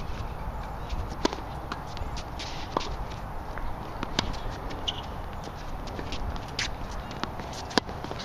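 Tennis ball struck by rackets and bouncing on a hard court during a rally: sharp pops a second or more apart, the loudest about a second in and near the end, with lighter footsteps on the court between them.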